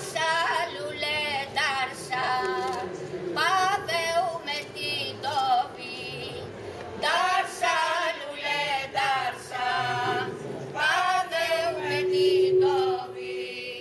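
A small group of women singing unaccompanied in a wavering, ornamented folk style, in phrases with short breaks between them. Near the end one voice holds a long steady note.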